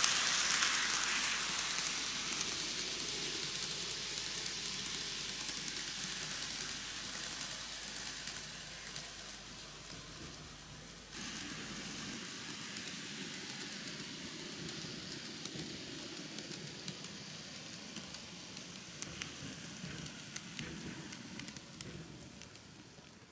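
N gauge model train, a Microace Seibu 4000 series four-car set, running on its track: a steady rolling hiss of the wheels with faint clicks. It is loudest as the train passes close at the start and fades as it runs away, with a sudden rise about eleven seconds in.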